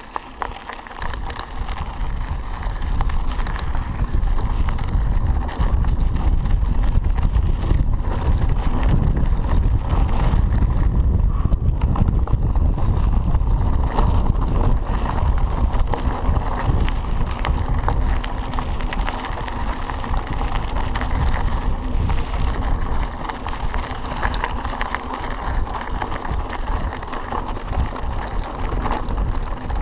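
Mountain bike rolling over a loose gravel track: tyres crunching on stones and the bike rattling, under a heavy low rumble of wind on the microphone.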